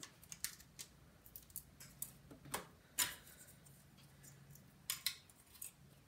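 Faint scattered clicks, taps and scrapes of a laptop hard drive being handled, turned over and pushed against the laptop's drive bay as it refuses to seat. The sharpest clicks come about two and a half, three and five seconds in.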